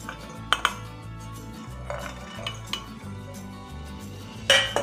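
Stainless steel plate and mixer-grinder jar clinking as green chillies, garlic cloves and ginger are tipped into the jar. There are a few light clinks and one louder clank near the end.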